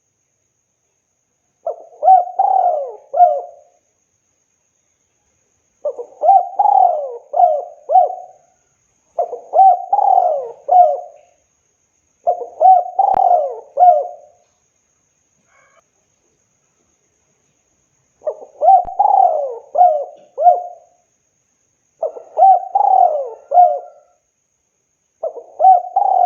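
Spotted dove (tekukur) cooing: seven phrases of several coos each, separated by a second or two of silence, with a longer pause about halfway through.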